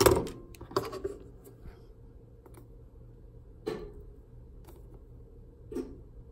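Handling knocks and clicks of a Honda main relay being set down and worked on a wooden workbench while its joints are soldered. The loudest knock comes right at the start, followed by another just under a second in, then two smaller ones a little past three and a half seconds and near the end, over a faint steady low hum.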